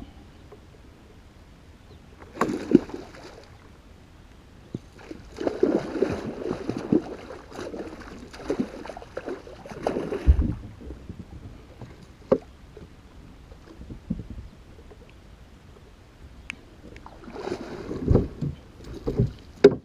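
Water splashing and sloshing against a small boat in three irregular spells, with scattered sharp knocks on the hull in between.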